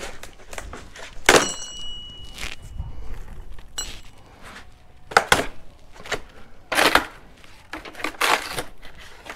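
Cardboard packing being pulled, torn and crumpled out of the box around a new motorcycle jack. It comes as a string of about six rough scraping, crunching handling noises, with a brief ringing tone after the first loud one.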